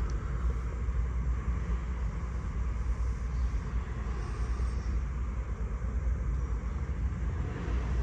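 A steady low rumble with a faint even hiss above it and no distinct knocks or clicks.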